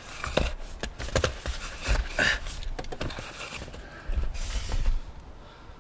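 Scattered clicks and knocks with short bursts of rustling: hand work under a car, handling tools and a plastic sheet while getting set to undo the oil drain plug.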